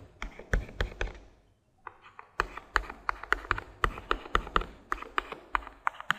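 Pen or stylus tapping on a writing tablet as short strokes are drawn, with quick sharp taps about three or four a second. The taps stop for about a second after the first second, then resume and run on steadily.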